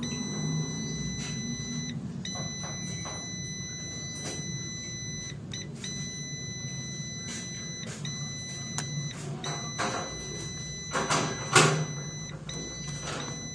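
A steady electronic beep, held for several seconds at a time and cut by short breaks, over a low steady hum. A few sharp clicks and scrapes come near the end and are the loudest sounds.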